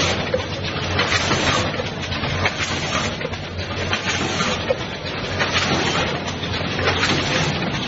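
Vacuum rotary pouch-packing machine with automatic bag feeding running: a steady hum under continuous clattering, with many sharp clicks.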